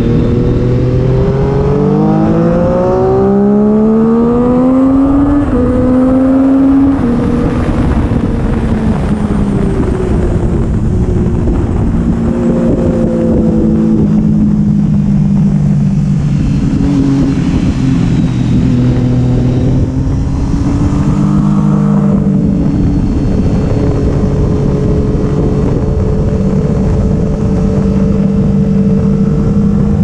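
Sport motorcycle engine heard from onboard at track speed: revs climb through a couple of gear changes over the first seven seconds, then run at steadier revs with smaller rises and dips through the corners. Steady wind rush from riding at speed lies under it.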